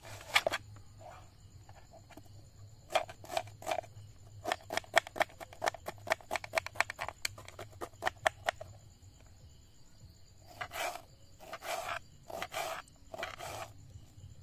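Small knife chopping a red onion on a wooden cutting board. There are a few single cuts, then a quick run of chops at about four a second, then slower, longer slicing strokes near the end. A faint steady high tone sits underneath.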